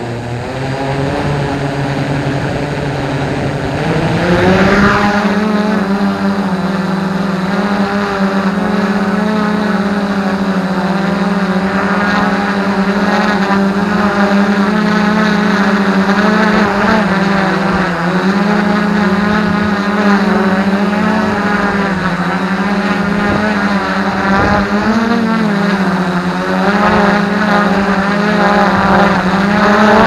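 F450 quadcopter's brushless motors and propellers spinning up, rising in pitch for about four seconds as it lifts off the gravel. A loud steady buzz follows, heard close from the drone's own camera, its pitch wavering up and down as the flight controller corrects for strong wind.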